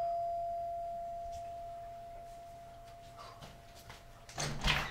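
A doorbell chime's single tone ringing out, fading slowly over about four seconds. Near the end, a short loud clatter as the front door is unlatched and pulled open.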